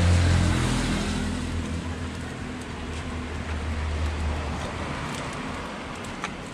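Steady low rumble and hiss of a roadside wok stove and street traffic, loudest at the start. A few light clicks come near the end, a metal spoon against the cup as seasoning is spooned over the rice.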